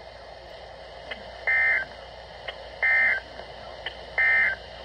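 Emergency Alert System end-of-message code on NOAA Weather Radio: three identical short, buzzy digital data bursts about a second apart, marking the end of the severe thunderstorm warning. Steady radio receiver hiss runs underneath.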